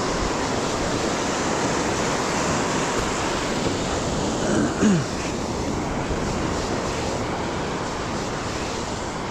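Beach surf rushing steadily, with wind on the microphone. A short falling vocal sound comes just before five seconds in.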